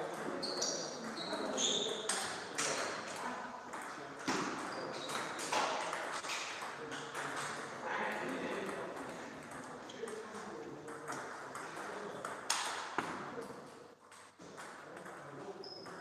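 Table tennis rally: a celluloid-type ball clicking sharply off rubber paddles and bouncing on the table, in irregular strings of quick hits with short pauses between points.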